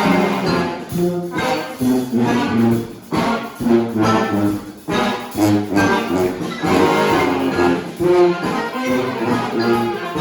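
Brass band playing live: horns carrying the tune over a low brass bass line and a steady beat.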